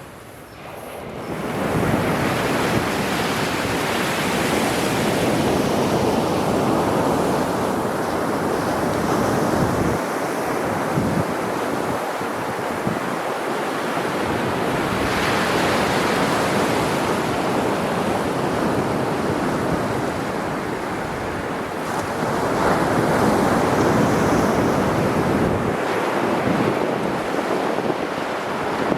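Sea surf: waves breaking and washing on the shore in a continuous rush that swells in over the first couple of seconds and surges again about halfway and near the end, with wind buffeting the microphone.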